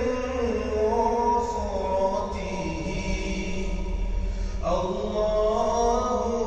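Background music: a chanted vocal line with long held notes that step to a new pitch every second or two.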